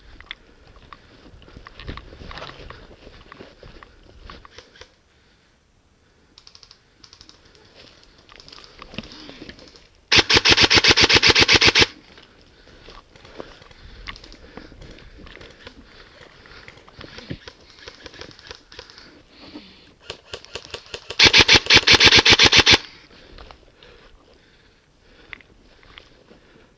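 Airsoft M4 electric rifle firing two full-auto bursts at a high rate, each lasting under two seconds: one about ten seconds in and one about twenty seconds in. Faint scattered clicks and rustling come in between.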